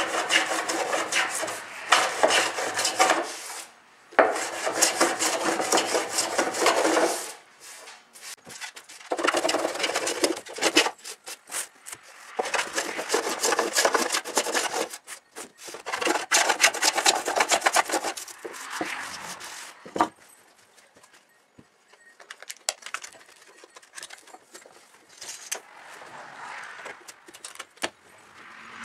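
Hand plane shaving along the edge of a beech-plank shield in a series of long scraping strokes, each two to three seconds, with softer, shorter scraping in the last third.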